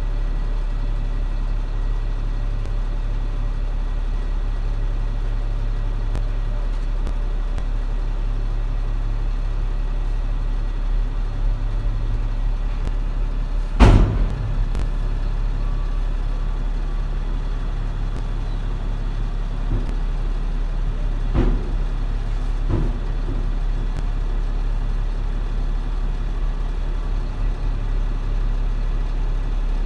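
Heavy machine's engine idling steadily, heard from inside its cab. A loud sharp knock about halfway through, and two fainter knocks a few seconds later.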